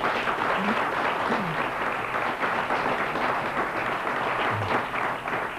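Studio audience applauding steadily, many hands clapping together.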